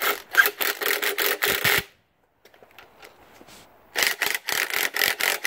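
Cordless impact driver hammering a bolt tight, in two bursts of about two seconds with a pause between.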